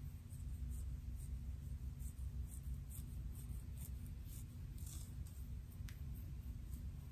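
Long fingernails scratching through short hair on a scalp: a string of short, soft scratches, several a second, over a low steady hum.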